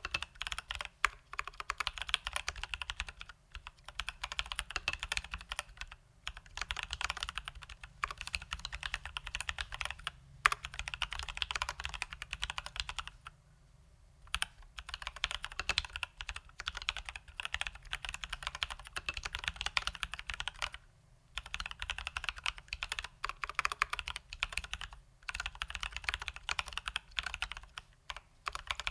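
Continuous fast typing on a Leopold FC980M mechanical keyboard with Durock T1 tactile switches lubed with Krytox 205g0 and stock keycaps: dense key strokes in runs of a few seconds with short pauses between them. One sharper, louder stroke comes about ten seconds in.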